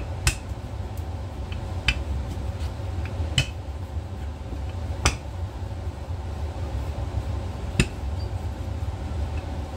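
Wooden rolling pin working dough on a floured wooden board, with about five sharp knocks a second or two apart as the pin strikes the board, over a steady low hum.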